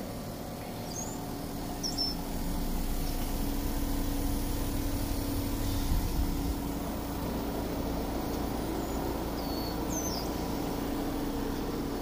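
Trane XV variable-speed heat pump outdoor unit running in heat mode: a steady hum with a low held tone. Birds chirp faintly a few times.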